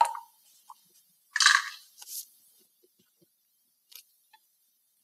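Metal tools and wheel-end parts being handled on a workbench. A sharp click at the start, then about a second and a half in a brief, loud scraping clatter, followed by a light clink and a faint tap near the end.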